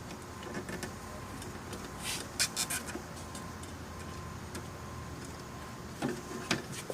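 Scattered light clicks and rustles as a rubber door seal is worked into place against a metal retaining plate, over a low steady hum. The clicks come in a cluster a couple of seconds in and again near the end.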